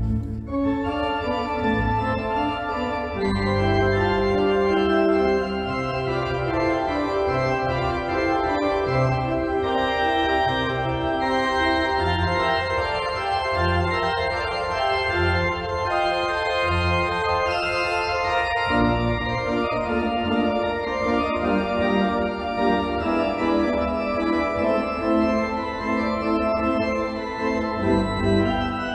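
Organ music: sustained chords held over a bass line that moves note by note.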